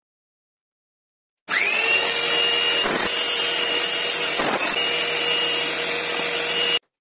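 An electric power tool working wood: its motor whine rises as it starts about a second and a half in, then runs steadily, with two short dips, and cuts off abruptly near the end.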